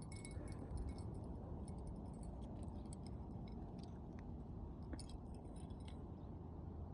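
Faint scattered small clicks and ticks, irregular and light, over a steady low rumble.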